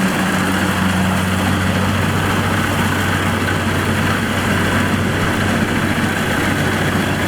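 Kubota DC-70 Plus rice combine harvester running steadily: a constant low diesel engine hum under an even wash of machine noise.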